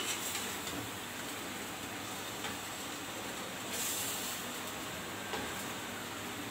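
Chicken karahi simmering in a metal karahi with fresh yogurt stirred in, a steady sizzling hiss, with a few light scrapes of the slotted spoon and a brief swish of stirring about four seconds in.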